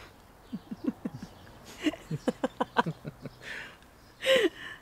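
A man and a woman laughing softly together in a run of short chuckles, then one louder voiced sound falling in pitch near the end.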